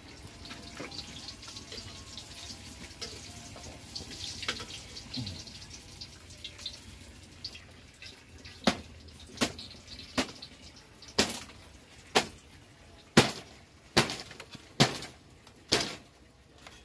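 Tilapia frying in oil in a wok, a faint crackling sizzle. In the second half come a dozen or so sharp taps, about one every 0.7 s.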